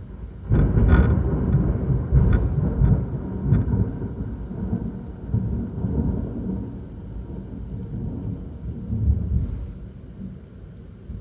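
Close thunder: a sudden sharp crackling clap about half a second in, with a few more cracks over the next three seconds, then a long rolling low rumble that fades out near the end.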